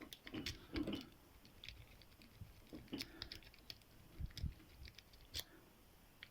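Faint, irregular metallic clicks and short scrapes of a lock pick being rocked in the keyway of a small Qualtec padlock against the tension wrench, with the lock not yet opening.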